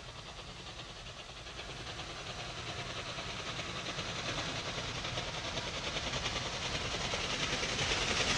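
Steam train approaching, its steady rapid beat growing steadily louder.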